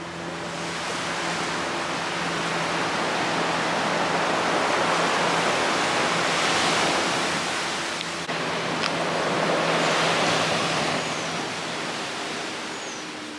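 Ocean surf, waves washing onto the shore as a broad hiss that swells and fades twice. A faint steady low hum runs underneath.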